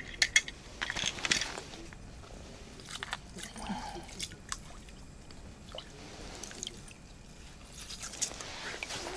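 Small clicks and rustles from handling a winter fishing rod's reel and line, with a few faint water drips in the ice hole; a cluster of sharp clicks comes right at the start.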